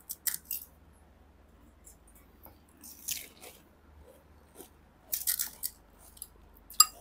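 Crisp, hollow pani puri (golgappa) shells being cracked open with the thumb and bitten into: short crackly crunches in a few clusters. A sharp clink near the end is the loudest sound.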